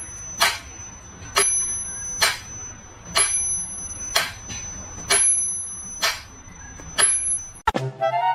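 A small bell struck eight times at a steady pace of about one strike a second, each strike ringing on in a high, clear tone until the next. It stops near the end.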